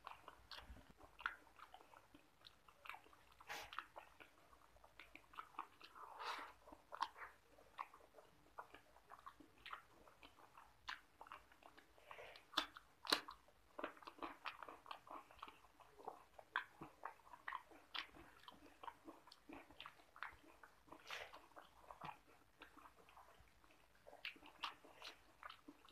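A person chewing rice and egg curry with the mouth open: a steady run of short, wet smacks and clicks, one sharper smack a little past the middle. Fingers mixing rice into the curry add soft squelches.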